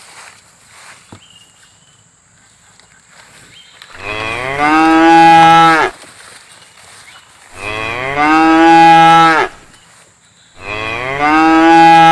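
A cow mooing three times, each call about two seconds long, rising in pitch at the start and then held steady; the third call runs past the end.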